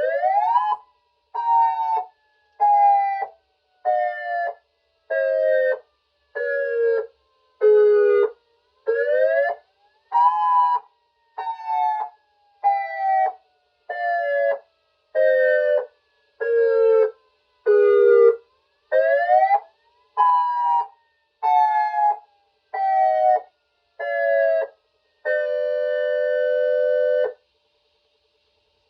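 Dual-tone electronic siren on pulsed wail: a two-pitch tone chopped into pulses a little under one a second. The pitch sweeps up quickly, then steps down pulse by pulse over about eight seconds, three times over. Near the end a steady two-pitch tone sounds for about two seconds and cuts off.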